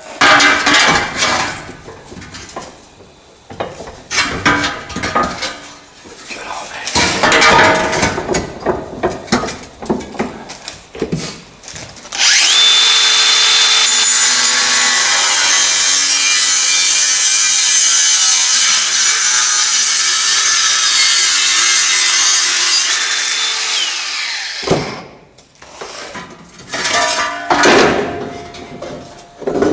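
Angle grinder (disc cutter) cutting through 3 mm steel plate: a loud, steady grinding hiss for about twelve seconds, starting about twelve seconds in and cutting off sharply. Shorter intermittent noises come before and after it.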